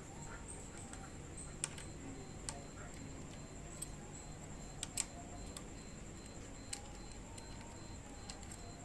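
Scattered light clicks and taps, one every second or so, from tools and handlebar parts being handled while a motorcycle handlebar riser is swapped, over a faint steady high whine.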